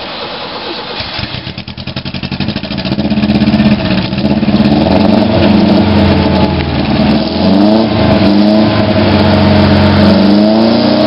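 Subaru L series wagon's flat-four engine running after a soak of Subaru upper engine cleaner, getting louder over the first few seconds, then revved up and down repeatedly from about seven seconds in to clear the cleaner out, which smokes from the exhaust.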